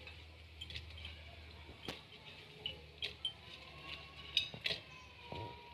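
A few faint, sharp clinks and taps of cookware, spaced irregularly, as fried pakoras are added by hand to a pot of kadhi.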